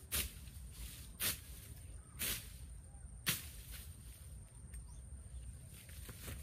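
A tool striking repeatedly, about once a second: four sharp strikes over the first three and a half seconds, then only fainter sounds.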